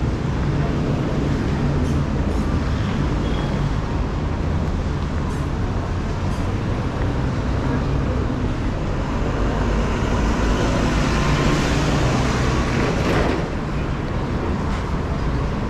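Steady city street traffic rumble. About two-thirds of the way through, a passing vehicle swells louder and then drops away sharply.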